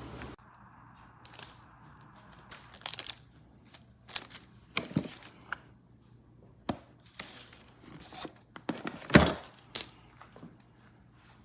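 Scattered clicks, rustles and crinkles of something being handled by hand, with the loudest a sharp knock about nine seconds in.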